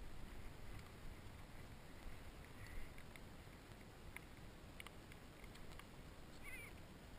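Faint wind rumble on the microphone, with a few light clicks and a brief high warbling chirp near the end.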